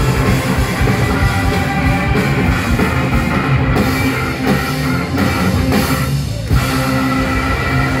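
Live blues-rock band playing loudly through a PA, with electric guitars and a drum kit.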